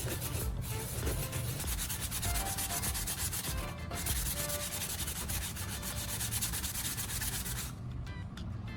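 Sandpaper rubbed by hand over cured body filler on a plastic casing: a steady scratchy sanding with quick back-and-forth strokes, pausing briefly twice and growing softer near the end.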